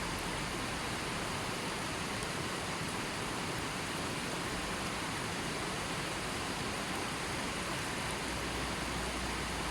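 River water flowing, a steady, even rush with no changes.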